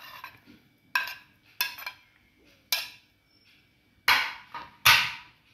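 Kitchen bowls and utensils being handled: a few sharp clinks and knocks, then two louder clattering sounds near the end that fade quickly.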